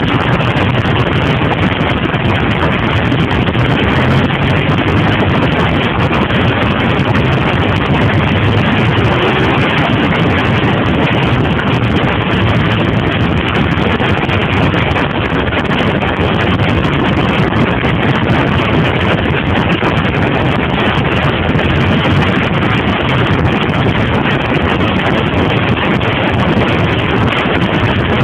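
Steady wind rushing over the microphone of a camera riding on a 2002 Suzuki TL1000R, with the bike's V-twin engine running underneath at cruising speed.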